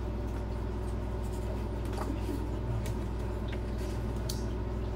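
Steady low room hum, with a few faint ticks and rustles from a CD album booklet being held and its pages turned.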